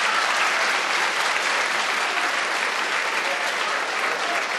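Theatre audience applauding, a dense continuous clapping that eases off slightly near the end.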